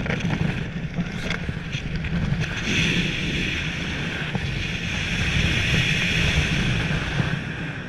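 Wind rushing over a skydiver's helmet-camera microphone while descending under an open parachute, a steady blustery noise with a low rumble that turns hissier about three seconds in.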